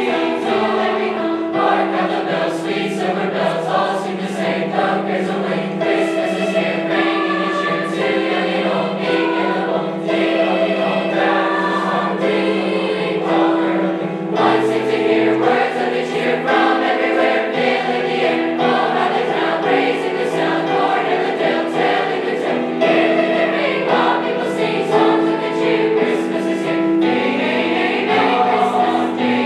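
High school choir singing, with several voice parts holding sustained notes.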